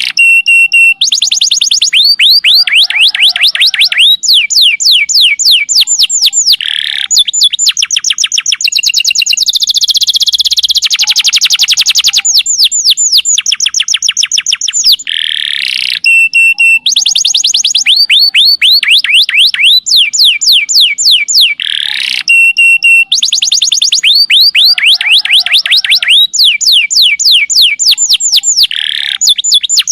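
Canary singing long, unbroken trills: rapid runs of high, downward-sweeping whistled notes, several a second, changing to a new trill every second or two. The same sequence of trills comes round twice, about 15 seconds apart.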